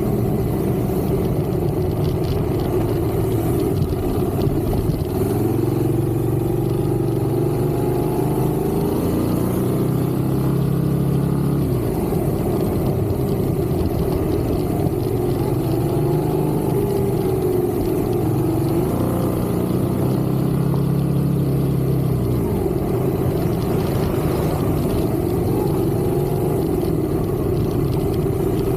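Motor vehicle engine running steadily while driving, its note slowly rising and falling as the speed changes.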